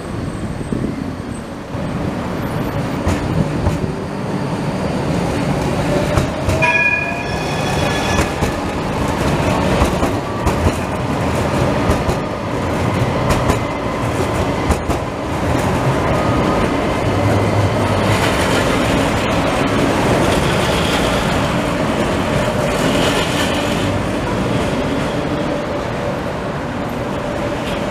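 Porto Metro light-rail trams passing on street track, the wheels rumbling on the rails. About a quarter of the way in a tram's electric drive gives a whine that rises in pitch as it picks up speed.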